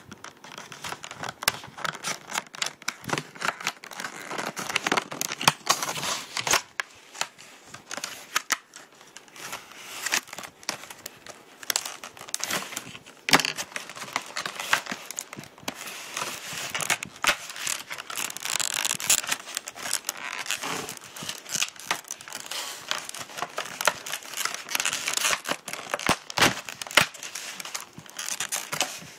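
Packaging being cut with scissors and torn open: a dense, irregular run of snips, crinkling and tearing crackles.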